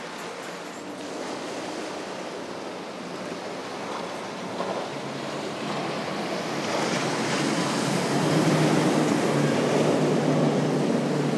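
Powerboat running fast through choppy water: rushing water and spray with wind on the microphone, and the drone of outboard engines growing louder in the second half.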